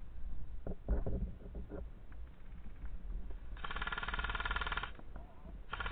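Airsoft electric rifle firing full-auto, a fast buzzing rattle: one burst of just over a second about three and a half seconds in, then another starting near the end. A few low handling thumps come about a second in.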